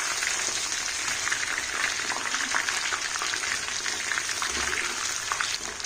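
Batter-coated chicken pieces deep-frying in hot oil: a steady, dense sizzle full of small crackles.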